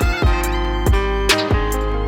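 Instrumental backing music with a steady drum beat under sustained melodic tones.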